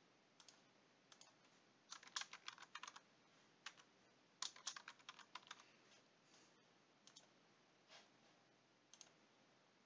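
Faint computer keyboard typing: two short bursts of keystrokes, with a few single clicks before, between and after.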